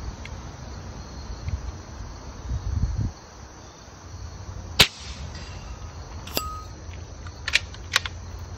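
A single shot from a .25 calibre AEA Challenger bullpup PCP air rifle: one sharp crack almost five seconds in. A few lighter clicks follow, the first with a brief ringing tone.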